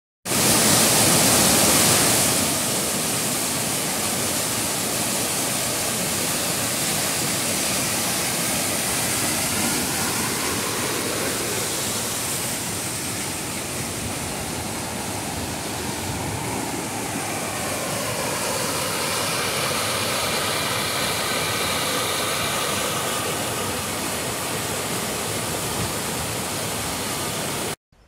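Mountain waterfall: a steady, loud rush of white water tumbling over rocks. It is louder for the first two seconds and cuts off abruptly near the end.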